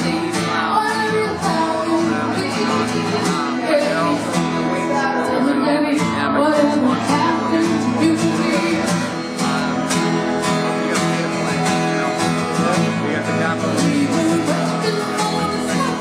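Acoustic guitar strummed steadily with a woman singing over it.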